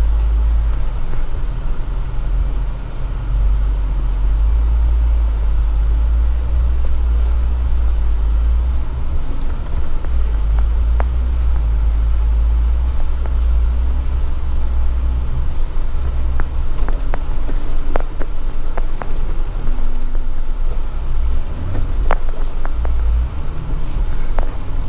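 Jeep crawling up a rocky dirt trail in four-wheel-drive low range: a steady low engine and drivetrain rumble, with a few sharp knocks and clicks scattered through the second half.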